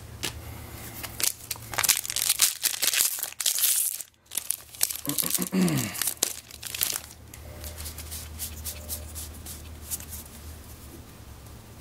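A foil Magic: The Gathering booster pack wrapper is torn open and crumpled, crinkling and crackling for about the first seven seconds. Then the sound drops to a faint rustle of cards being handled.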